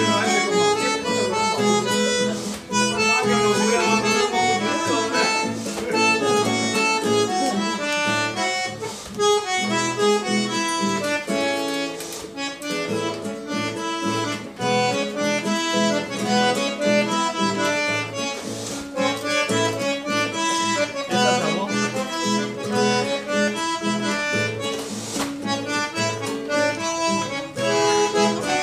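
Bandoneón playing a chamamé with acoustic guitar accompaniment, the bandoneón's sustained reedy chords and melody over the guitar's plucked rhythm, without a break.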